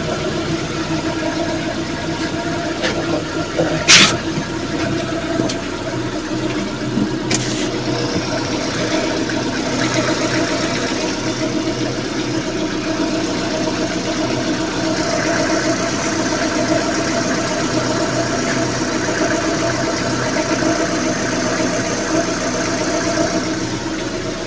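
Lada Granta FL's four-cylinder engine idling steadily, still cold, just after an oil and filter change. A sharp knock stands out about four seconds in, with a fainter one a few seconds later.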